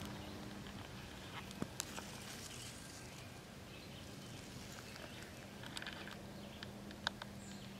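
Faint outdoor background: a low steady hum with a few brief, scattered ticks and chirps.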